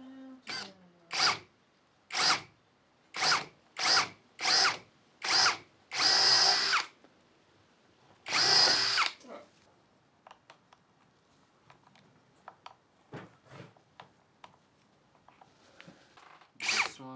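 Cordless drill with a twist bit drilling a small hole up into a door frame's head jamb for the inactive door's top bolt, the trigger pulsed in about seven short bursts, then two longer runs of about a second each. After that only faint ticks are heard.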